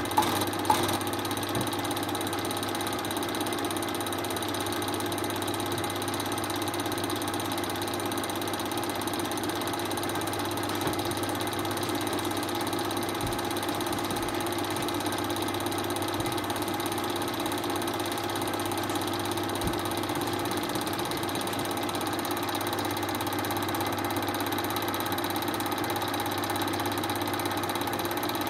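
Film projector running: a steady mechanical whir and fine rapid clatter with a constant hum, after a few sharp clicks in the first second.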